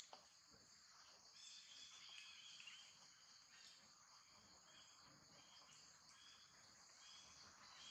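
Faint outdoor insect chorus: a steady high-pitched drone, joined from about a second and a half in by a short, slightly lower chirp that repeats about every second or less.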